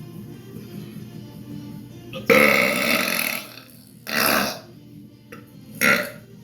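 A man belching loudly and deliberately: one long burp lasting over a second, starting a little over two seconds in, then shorter bursts about a second and three seconds later.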